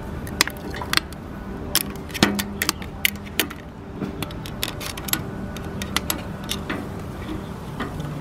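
Steel tongs clinking and knocking against a small steel wood-burning stove as split firewood is pushed into the firebox and the stove door is shut and latched: a run of sharp metallic clicks, thickest in the first few seconds and sparser after.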